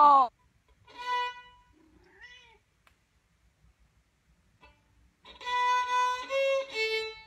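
Violin played in short bowed notes, with a cat meowing in between, then a longer phrase of several violin notes near the end.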